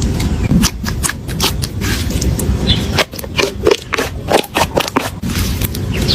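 Slime being squished and worked by hand, giving many quick, irregular clicks and pops.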